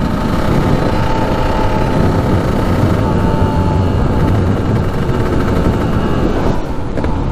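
Single-cylinder two-stroke engine of a 1993 Kawasaki KDX200 dirt bike running at a steady road speed of about 45 mph, with wind rumbling on the microphone. Its loudness dips briefly near the end as the throttle eases.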